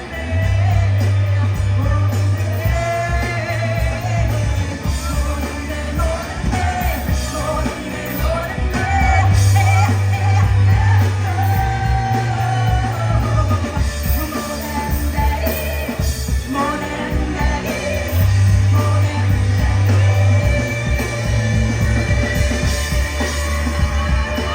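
Live rock band playing a song with a singer, over a bass line of held low notes that repeats about every nine seconds.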